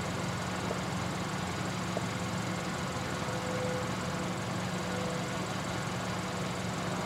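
Approaching diesel freight train, still some distance off: a steady low rumble under an even hiss, with no horn or other sudden sound.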